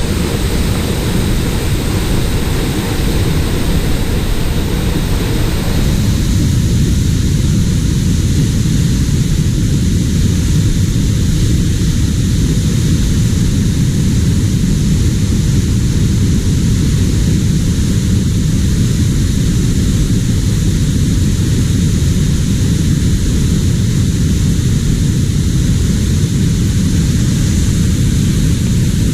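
Waterfall: a loud, steady rush of falling water, heaviest at the low end.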